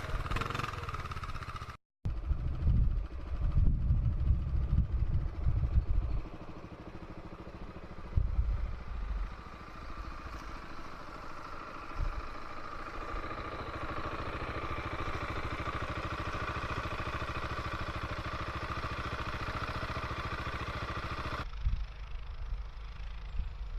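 500 cc four-stroke ATV engine running while riding, revving in uneven bursts for the first few seconds, then running steadily. The sound cuts out briefly about two seconds in, and turns to a duller rumble near the end.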